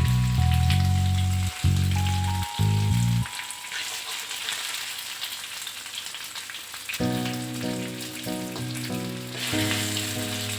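Chicken sizzling as it fries in hot oil in a pan. Background music plays over it for the first three seconds, drops out, and comes back about seven seconds in.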